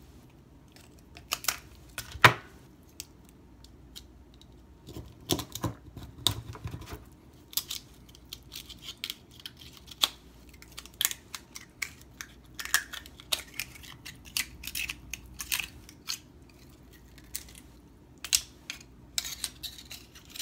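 Oyster knife scraping and prying at brittle-shelled Virginia Eastern Shore oysters: a run of irregular sharp clicks, cracks and short scrapes of knife on shell and shell chipping, with a loud crack about two seconds in.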